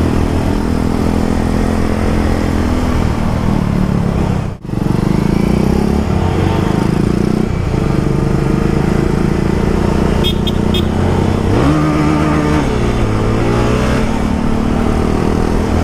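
Motorcycle engine running while riding at speed. It cuts out briefly about four and a half seconds in, and revs up around twelve seconds in before easing back.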